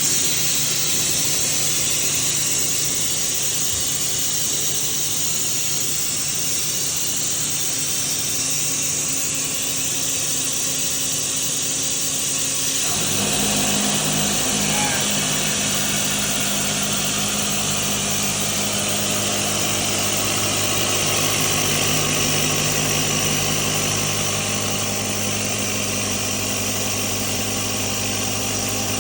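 Mazak CNC milling machine running a facing program with a 6-inch cutter, with coolant spray and an air blast hissing steadily. About halfway through, a deeper steady hum sets in and holds.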